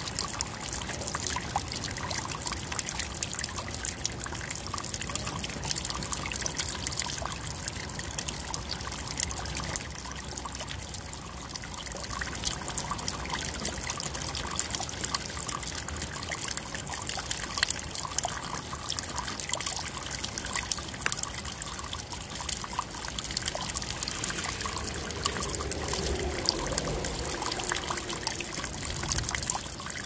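Rainwater running off a roof in thin streams and splashing onto wet stones and into a small pool below: a steady trickle and splatter of falling water, thick with small drop splashes.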